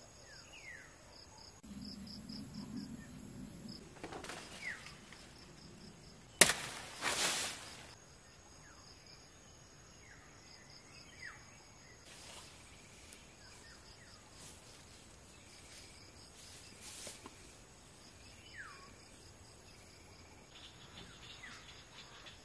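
Insects chirring steadily in a high-pitched chorus, with a few short falling chirps now and then. A sharp click about six seconds in is followed by a second of rustling noise.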